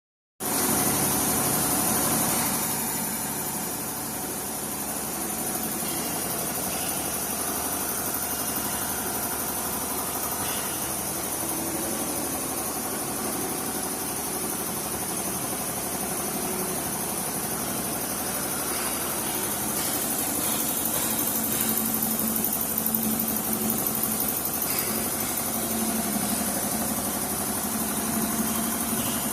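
Truck engine idling steadily, starting abruptly about half a second in, a little louder for the first couple of seconds and then even.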